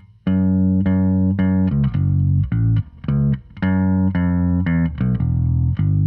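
1973 Gibson SB-350 electric bass played on its bridge pickup alone: a run of plucked notes, two or three a second, starting a moment in.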